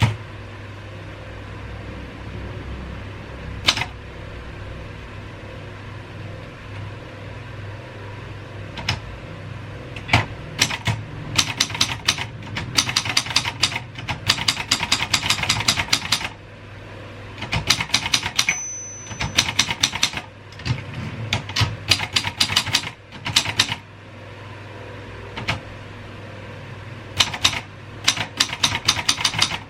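Royal 202 manual typewriter being typed on: a few single keystrokes at first, then fast runs of clacking keys with pauses between them. A brief high ring comes near the middle, over a low steady hum.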